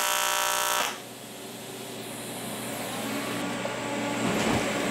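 AC TIG welding arc on 7075 aluminum, buzzing loudly for just under a second in a short spot weld, then cutting off. A steady machine hum carries on after it, with a brief soft bump near the end.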